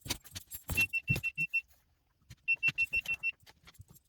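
Rapid high-pitched electronic beeping in short bursts, about eight beeps a second, with pauses of about a second between bursts, along with a few light clicks and knocks.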